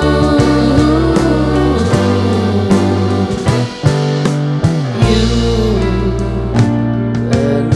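Dance backing music: a rock track with guitar, a steady bass line and a regular beat.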